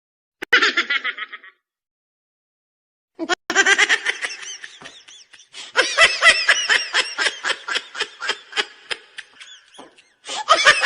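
Laughter sound effects: a short burst of laughing about half a second in, then after a pause a long run of quick, high-pitched laughing, and another burst of laughter near the end.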